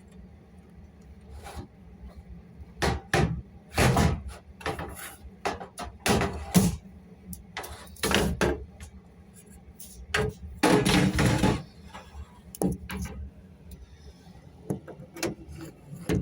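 Irregular knocks, scrapes and rattles of hard objects being handled and moved, about a dozen, with a longer scraping rattle about eleven seconds in, over a steady low hum.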